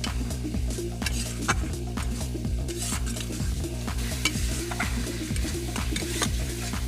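Close-up eating sounds of rice and curry: wet mixing and chewing with many small clicks and smacks, over steady background music.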